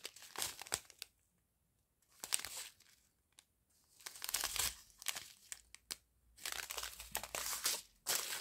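Clear plastic sachets of diamond painting drills crinkling as they are handled, in several irregular bursts with brief silent gaps between them.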